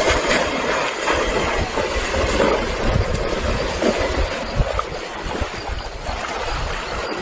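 River water splashing and churning as a crocodile and an antelope struggle in it, with wind rumbling on the microphone.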